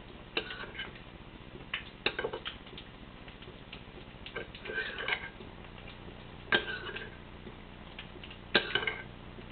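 A utensil knocking and scraping against a metal baking pan as fish cake mixture is worked in it: about five sharp clinks with a short ring, spaced a second or two apart, the loudest near the end.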